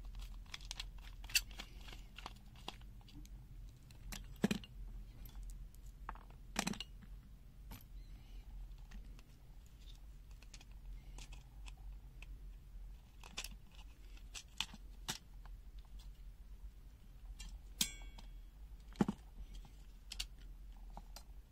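Hard plastic and a circuit board handled and pried apart with a screwdriver as a Kyoritsu KEW MATE 2012RA clamp multimeter is taken apart: scattered sharp clicks and small knocks, a few of them louder.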